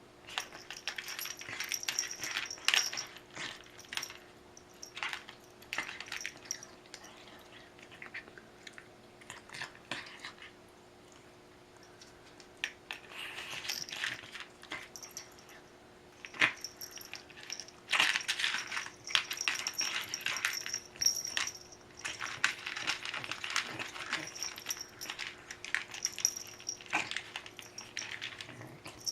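Dog eating from a bowl: bursts of crunching and clinking with short pauses between them.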